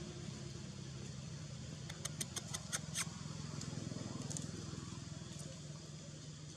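A low, steady engine-like hum that slowly fades, with a quick run of about six sharp clicks about two seconds in.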